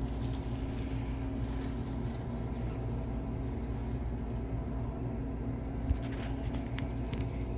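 Pizza vending machine running while it bakes a pizza: a steady low mechanical hum, with one faint click about six seconds in.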